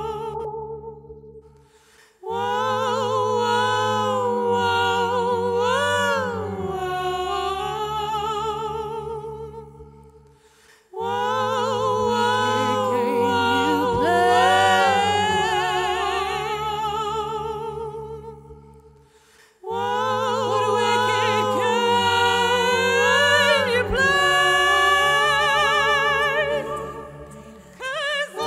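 A woman singing a wordless melody with vibrato in three long phrases over steady low sustained chords. Each phrase fades away briefly before the next one begins.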